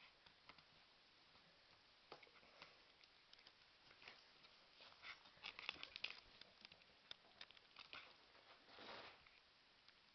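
Faint small clicks, nibbling and crinkling as a pet rat gnaws at chocolates and paws at the box's gold foil cups, busiest in the middle, with a longer rustle about nine seconds in.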